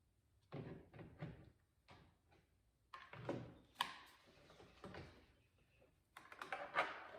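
Small plastic clicks and rattles from handling a car door lock actuator and its cable ends as the cables are fitted, coming in three short bunches with the sharpest click about four seconds in and another bunch near the end.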